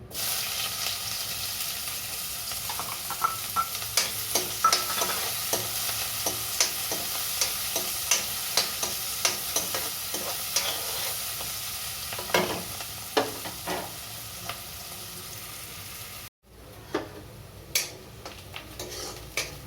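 Onions dropped into hot oil in a kadhai, sizzling loudly from the moment they go in, with a spatula clicking and scraping against the pan as they are stirred. About three seconds before the end the sizzle cuts out for an instant and then carries on quieter.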